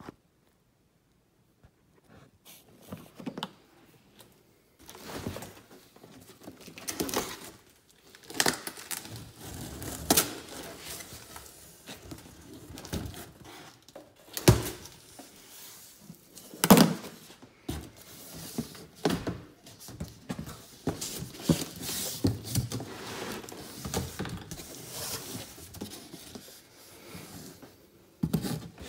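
A large cardboard box being opened by hand: packing tape worked loose and cardboard flaps rubbed, bent and pulled open, with irregular rustles, scrapes and sharp knocks, starting about two seconds in.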